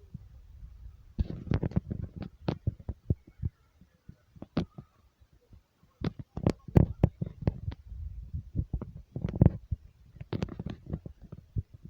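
Irregular knocks and rattles over a low rumble, starting about a second in, with a lull in the middle before they pick up again.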